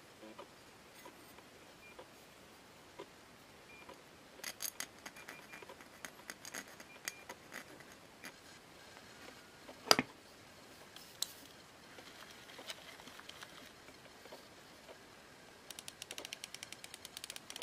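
Small steel drag washer being filed with a flat hand file in irregular scratchy strokes, followed by one sharp knock. Near the end, the aftermarket drag clicker on an Abu Garcia Ambassadeur 4500C baitcasting reel clicks rapidly and evenly as the handle is turned with the spool held and the drag slips.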